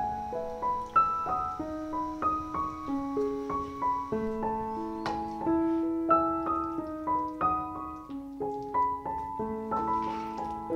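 Background piano music: a gentle melody of single notes and chords, each note fading after it is struck.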